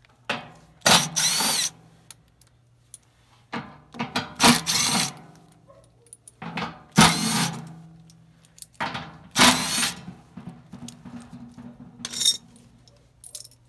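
Cordless power driver with a nut-driver socket, run in four short bursts, each spinning up and then stopping, as it backs out the bolts holding the blower motor's mounting arms to the blower housing. A brief metallic clatter follows near the end.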